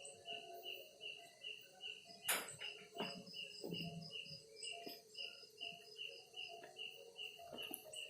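Crickets chirping at night in a steady rhythm of about three pulses a second, over a lower continuous chirring. A sharp knock a little over two seconds in, with a few fainter knocks after it.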